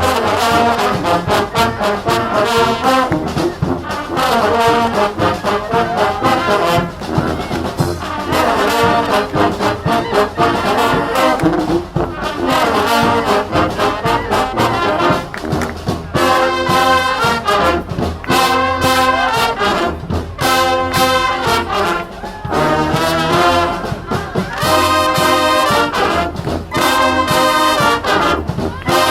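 Street marching band's brass section, trombones and trumpets, playing loudly together. About halfway through, the horns switch to a run of held chords cut off short and repeated at a steady pace.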